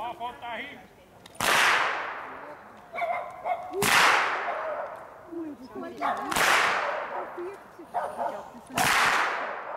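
Long Schnalzer whips cracked by a group in unison, each round landing as one loud, sharp crack. Four cracks come evenly about two and a half seconds apart, each trailing off over a second or so.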